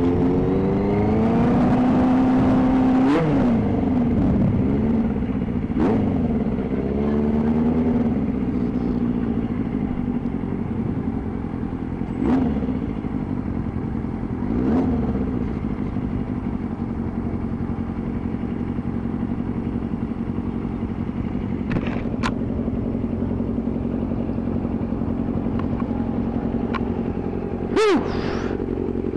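Motorcycle engine accelerating, its pitch rising and dropping back three times as it shifts up through the gears. It then settles into a steady cruise, with a couple of brief swells later on.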